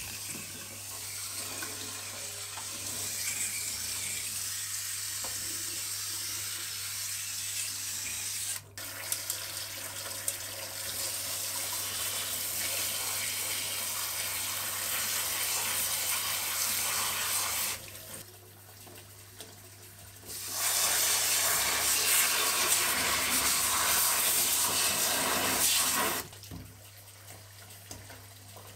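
Garden hose spray head spraying water onto a plant's root ball to rinse off the peat substrate, a steady hiss. It stops for a couple of seconds, comes back louder and then stops again near the end.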